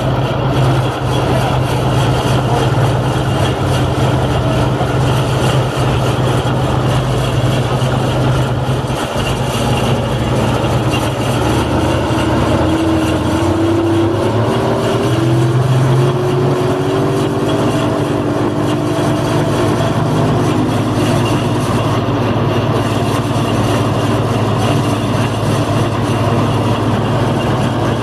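Northwest 80-D crane's engine running steadily. A higher, wavering whine from the machinery joins in for several seconds in the middle.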